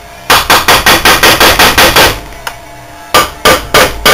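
Hammer tapping on the metal housing of a Ford vane-type power steering pump: a quick run of about nine sharp taps, a pause of about a second, then four more taps and one more near the end.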